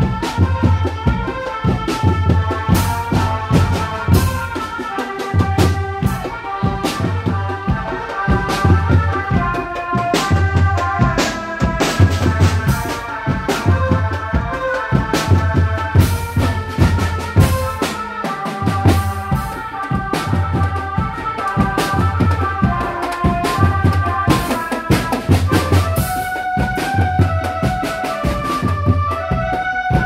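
Indonesian drumband music: marching bass drums and other drums beating a busy rhythm over a low pulse about once a second, with a fast melody line over it.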